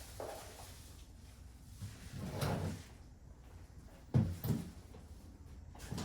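Handling sounds: a scrape or rub, then two sharp knocks about a third of a second apart.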